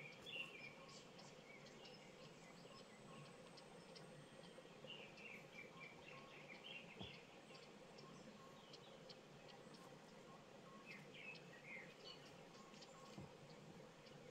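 Faint chirping of small birds, a few short runs of quick chirps with single high notes scattered between them, over a faint steady hum.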